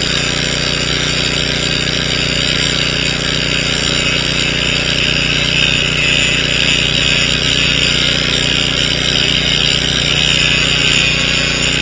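Electric arc welding on steel sheeting: a steady hissing crackle that grows stronger from about five seconds in and stops abruptly near the end. Under it, an engine runs steadily.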